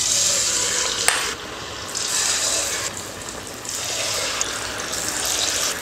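Batter-coated banana pieces deep-frying in hot oil in a kadai: a sudden burst of sizzling and bubbling as the first piece goes in, swelling again about two and four seconds in as more pieces follow, with a light click about a second in.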